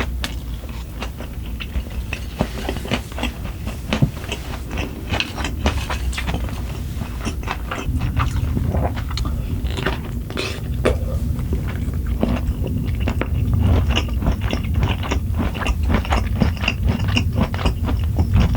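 Close-miked eating sounds: a steady run of crunchy bites, wet chewing and mouth clicks. The chewing grows fuller and heavier about halfway through.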